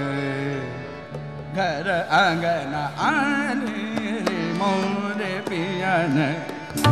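A male voice sings fast, ornamented runs in Raag Yaman Kalyan over a steady held drone. Right at the end a sharp tabla stroke comes in.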